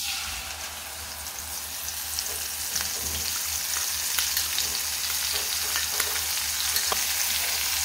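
Wet spice paste hitting hot mustard oil in a steel kadhai and sizzling, with scattered small pops and spatters. The sizzle starts abruptly as the paste goes in and then holds steady.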